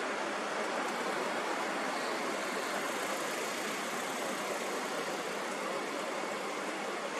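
Steady, even rushing noise with no rhythm, breaks or changes in level.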